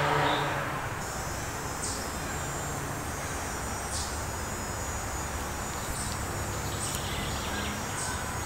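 Insects trilling steadily in woodland: a high, thin buzz with a short, sharper chirp about every two seconds, over a low steady hum.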